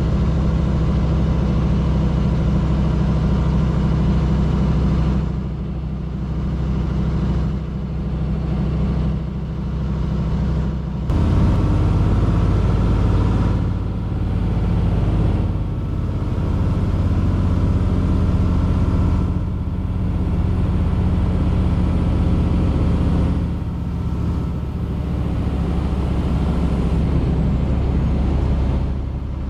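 Heavy-haul truck's diesel engine running steadily under an oversize wind-tower load. The level dips briefly several times, and the engine note changes about eleven seconds in.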